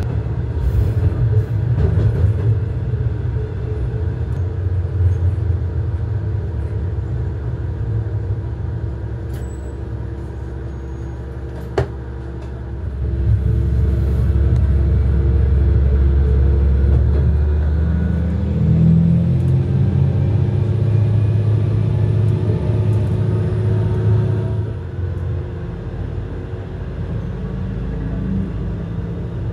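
Diesel railcar running under way: a steady low engine rumble with wheel-on-rail noise and one sharp click about twelve seconds in. Soon after, the engine note grows louder as it powers up, then eases back down a few seconds before the end.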